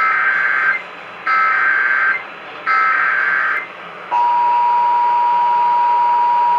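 Emergency Alert System data header: three short bursts of warbling digital tones about a second apart, sent ahead of a warning. A little after four seconds the steady two-tone EAS attention signal starts and holds.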